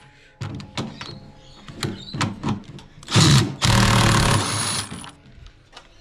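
Cordless impact wrench hammering for about two seconds, starting about three seconds in, as it undoes a counterweight bolt on a washing machine. Before it come a few light knocks and clinks of tool and metal parts.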